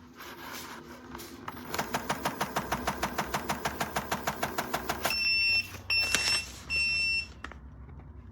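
A fast run of even clicks, about six a second for some three seconds, then three short, steady, high-pitched electronic beeps.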